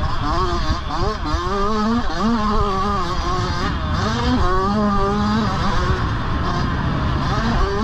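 Motocross bike engine revving hard under race throttle, its pitch climbing and dropping again and again as the rider works the throttle and gears, over a steady low rumble.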